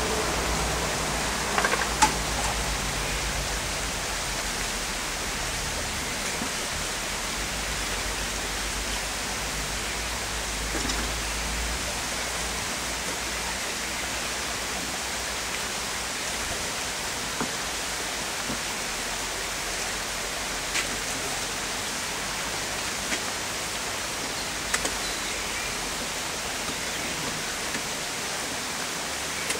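A steady, even rushing hiss, with a few light knocks and clicks from wooden hive frames and the hive body being handled, the sharpest about two seconds in.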